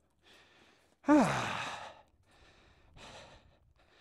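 A man sighing heavily: a loud voiced sigh about a second in, its pitch falling steeply, with quieter breaths in and out before and after.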